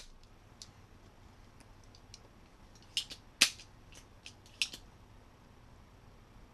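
Spring-loaded solder sucker (desoldering pump) clicking as it is cocked and fired to clear old solder from ESC pads: a few faint ticks, then a cluster of sharp clicks from about three to five seconds in, the loudest about three and a half seconds in.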